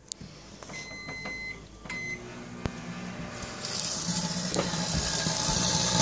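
Microwave oven keypad beeps, one long beep about a second in and a short one near two seconds, then a click as the oven starts and its steady electrical hum builds. From about three and a half seconds in, a loud steady hiss joins it as the lighters inside begin to spark and flare.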